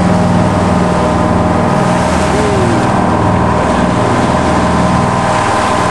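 Motorboat engine running steadily with the boat under way, with wind and water rushing past the hull.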